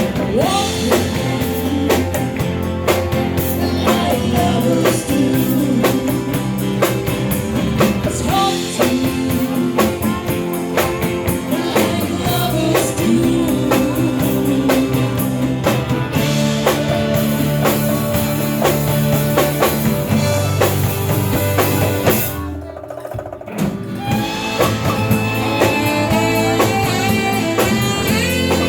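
Live band playing with a woman singing over drum kit and electric guitar. The band drops out briefly about 22 seconds in, then comes back with the guitar playing bending notes.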